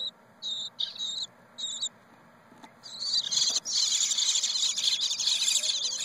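Eastern bluebird nestlings begging: a few short high-pitched bursts of calls, then about three seconds in a loud, continuous chorus of begging calls as the adult female arrives in the nest box to feed them.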